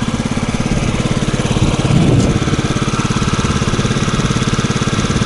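Yamaha Jog 50 cc scooter engine idling steadily just after being started on its electric starter, with a brief rise in revs about two seconds in. It runs evenly now that its clogged air filter, which had made it bog down and stall, has been replaced.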